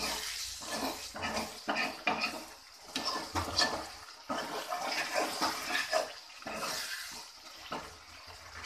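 Metal ladle stirring thick chicken gravy in a steel pot: irregular wet sloshing and squelching strokes as the gravy and leg pieces are turned over.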